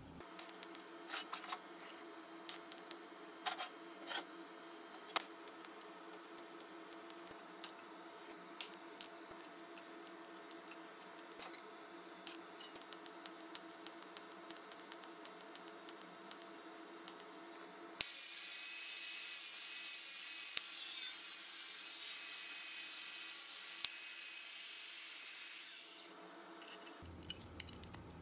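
Small clicks and taps of sheet-metal pieces being handled over a faint steady hum. About two-thirds of the way in, a welding arc strikes suddenly and hisses evenly for about eight seconds, then stops, followed by a few more clicks.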